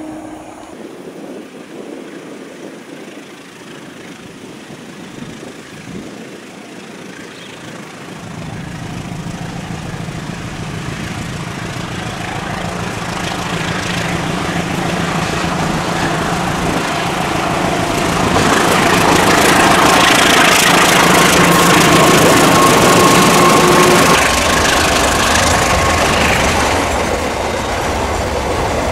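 Diesel locomotive hauling a train of covered freight wagons, approaching and passing. Its engine hum grows from faint to loud over the first twenty seconds, with wheels rumbling and rattling on the rails. The engine note drops about 24 seconds in as the locomotive goes by, and the wagons keep rolling.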